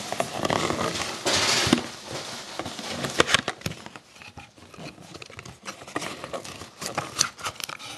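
Cardboard box being opened and trading card packs handled: loud rustling and crinkling for the first couple of seconds, then lighter crinkles and scattered handling taps.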